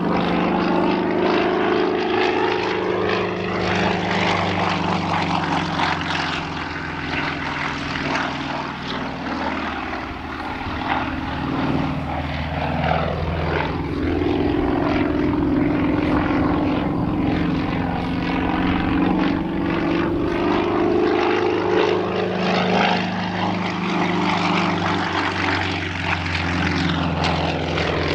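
Yakovlev Yak-55M's nine-cylinder M-14P radial engine and propeller during aerobatics. The engine note slides down and climbs back up several times as the plane manoeuvres.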